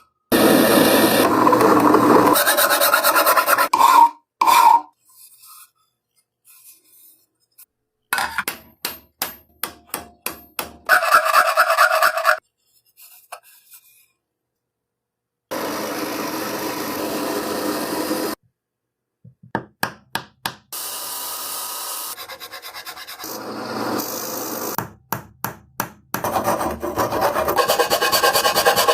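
Hand tools rasping and rubbing on the coffee grinder's parts during restoration: stretches of steady scraping alternate with runs of quick separate strokes, each cut off abruptly with silent gaps between.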